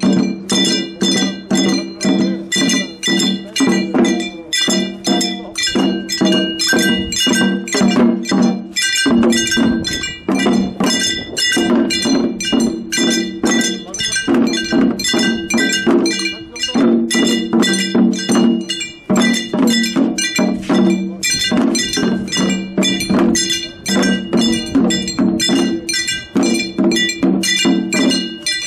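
Jangara nenbutsu ensemble: small metal hand gongs (kane) struck in a quick, even rhythm with the jangara drums. The gongs ring over a lower, fuller tone.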